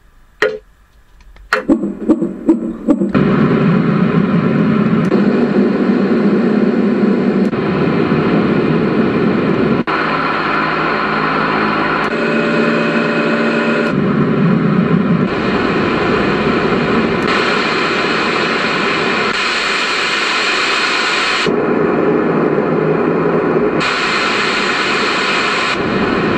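Roffie N500 white noise machine playing steady rushing noise through its built-in speaker, its tone shifting in steps every few seconds as it switches between noise sounds. A few clicks come just before the noise starts.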